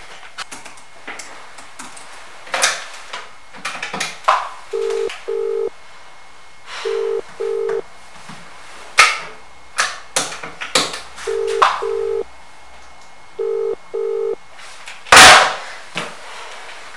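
Telephone ringback tone in double rings: two short steady buzzes, a pause, repeated four times. Scattered clicks and knocks run through it, and one loud thump comes about fifteen seconds in.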